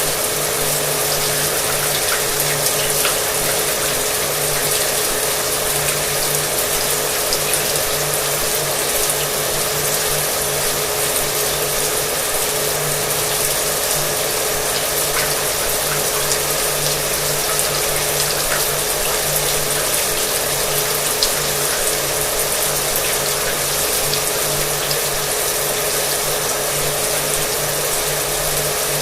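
Shower water spraying and splashing steadily, with an electric hair dryer running alongside as a constant motor hum.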